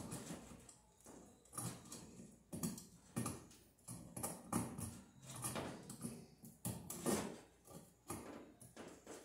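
Irregular clicks, knocks and rattles of flexible metal-clad (BX) cable and a metal junction box being handled and worked together by hand, one or two knocks a second.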